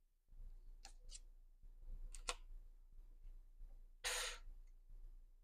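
Faint handling sounds of tarot cards: a few soft clicks and a brief rustle about four seconds in.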